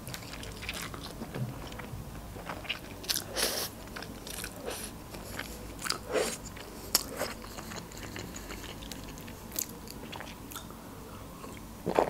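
Close-miked eating sounds: instant noodles slurped and chewed, with wet mouth clicks and smacks. The bursts are strongest around three and six seconds in, and a sip of juice from a glass comes near the end.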